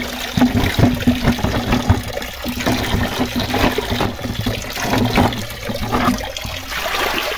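Natural spring water running and splashing into a shallow rocky pool close to the microphone, with a thin stream falling into it.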